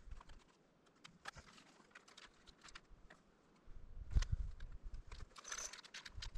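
Scattered light clicks and rustling of gear being handled by hand. About halfway through, a low rumble joins in.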